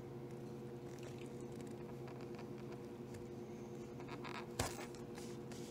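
Scissors cutting through paracord: one sharp snip about four and a half seconds in, with a few faint clicks of the blades around it, over a steady low hum.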